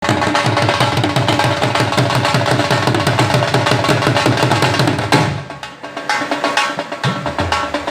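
Background music with fast, dense drumming that starts abruptly, thins out about five seconds in, then comes back with deep drum notes near the end.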